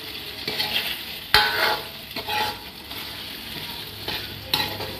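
Chopped tomatoes and onions sizzling in hot oil in a black wok while a steel ladle stirs and scrapes through them. The ladle clinks sharply against the pan about a second in. The tomatoes have just gone in on top of lightly browned onions.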